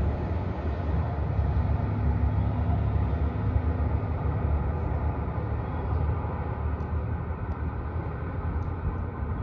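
Low, steady rumble of the diesel engines of a JR Shikoku 2700 series limited express railcar accelerating away after departure, easing slightly as it pulls into the distance.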